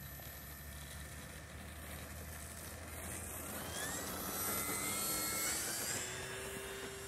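E-flite Air Tractor electric RC model plane's motor and propeller whining up in pitch as it accelerates down the runway for takeoff. It grows louder as it passes, peaking about five seconds in, then starts to fade.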